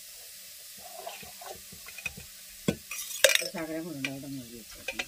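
Light metal clinks and knocks of a steel puttu maker being handled while the steamed puttu is pushed out, with one sharp clank a little after three seconds in.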